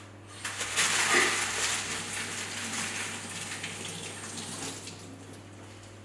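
Kitchen tap running water over a sheet of baking paper to wet it. The water starts about half a second in and tails off toward the end.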